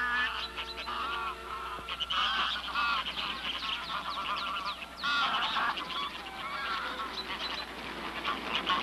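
A flock of young greylag geese honking as they take flight, many short calls overlapping throughout. A few held music notes fade out in the first two seconds.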